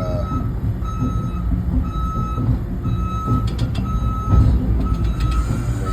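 Caterpillar excavator tracking forward, its travel alarm beeping about once a second over the steady diesel engine rumble. A single clank sounds about four seconds in.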